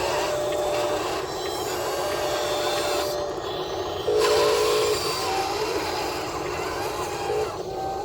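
Small electric motors of a miniature excavator running, with whining tones that hold and glide in pitch over a steady mechanical hum; it gets louder about four seconds in.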